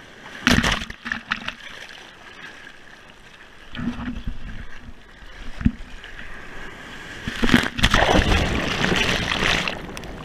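Breaking surf washing over a waterproof action camera held at the waterline. A sharp splash comes about half a second in and another surge near four seconds, then a longer, loud rush of whitewater from about seven and a half seconds as the foam swamps the camera.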